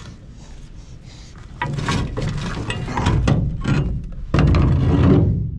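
Repeated metal knocks and clanks from work on the pins and bushings of a manure nurse boom, loudest about four and a half seconds in.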